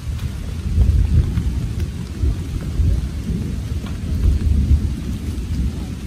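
Heavy rain with a loud, uneven low rumble on the microphone and scattered ticks of drops.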